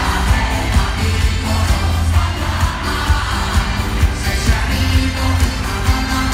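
Live Italian pop concert music played loud over an arena PA, with a heavy bass beat and singing, heard from among the crowd.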